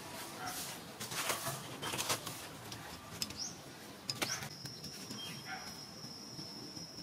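Outdoor ambience: scattered rustles and crackles in dry leaf litter, a couple of short high chirps, and a steady high-pitched whine that starts a little past halfway and holds on.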